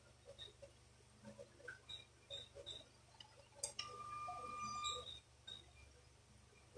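Faint clicks and taps of small metal parts and a screwdriver as the grip of a Daisy Power Line 1200 air pistol is fitted. Short high chirps sound now and then, and just past halfway a sharp click is followed by a steady tone lasting just over a second.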